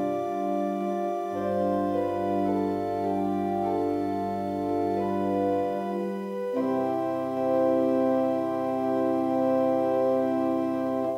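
Organ playing slow, sustained chords over a low bass. The harmony shifts about six and a half seconds in, and the last chord dies away at the end.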